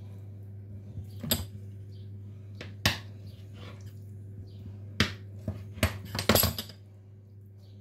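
Metal pizza-cutter wheel knocking and clicking against a tiled countertop as pieces are cut off a rolled dough log: about six sharp taps, several of them close together about six seconds in, over a steady low hum.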